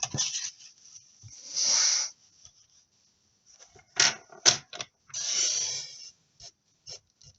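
Paper trimmer's scoring blade drawn along cardstock twice, a short rasping slide each time, with two sharp clicks between them.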